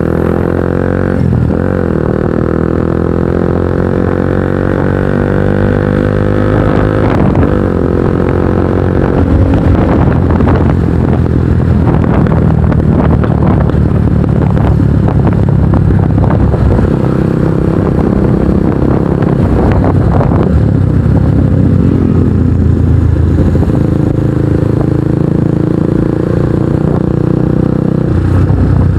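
Kawasaki NS150 single-cylinder motorcycle with an aftermarket Akrapovic exhaust, ridden under way. The engine's pitch climbs through the first several seconds with brief breaks between rises, then it runs steadily at speed.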